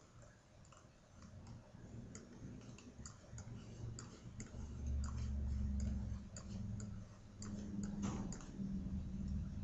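Computer mouse scroll wheel ticking in quick, irregular runs of small clicks as the view is zoomed and moved, over a low hum that grows louder from about halfway through.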